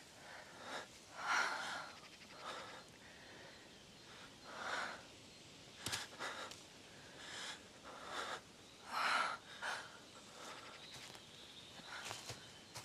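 Heavy, ragged breaths and gasps from an injured man lying on the ground, several separate noisy breaths a few seconds apart, with one sharp click about six seconds in. Near the end, light footsteps rustle through dry fallen leaves.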